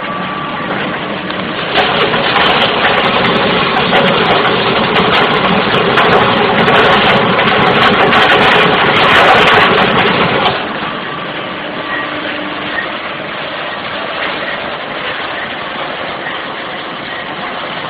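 Double-screw cashew-shell oil press running: loud, dense mechanical grinding with scattered sharp clicks, which drops about ten seconds in to a quieter, steady machine run.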